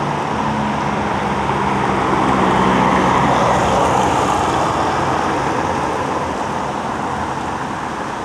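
Road traffic noise from passing cars: an even hiss of tyres and engines that swells about three seconds in and eases off toward the end.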